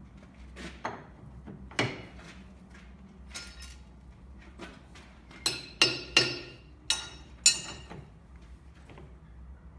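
Metal tools and parts clinking and knocking as they are handled, about eight sharp ringing strikes. The loudest come in a quick cluster about halfway through.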